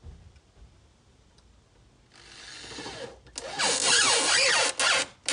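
Cordless drill-driver (screwdriver) driving self-tapping screws into the wooden eave board to fix a gutter bracket. There is a first run of about a second, then a louder run of nearly two seconds in which the motor pitch wavers and sags under load, and a brief last burst near the end.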